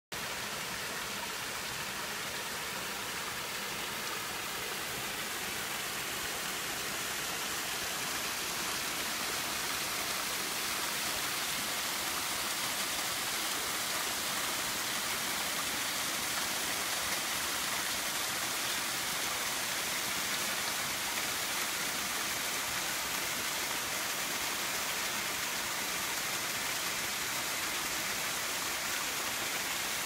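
Waterfall cascading down over rocks: a steady rushing hiss of falling water, growing slightly louder over the first ten seconds or so and then holding even.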